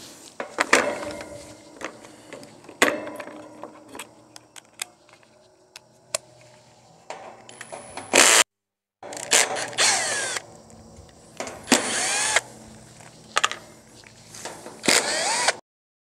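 Cordless drill/driver backing quarter-inch screws out of a condenser unit's sheet-metal side panel, in several short runs with the motor's pitch rising and falling, with sharp clicks between runs.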